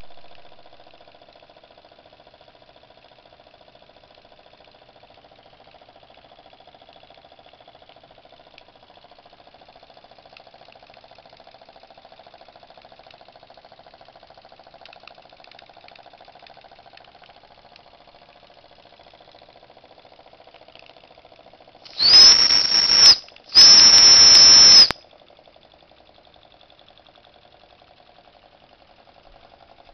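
Steam whistle on a Jensen Model 45 toy steam engine blown in two blasts of just over a second each, a shrill tone over a rushing hiss, about twenty-two seconds in. A faint steady sound runs underneath.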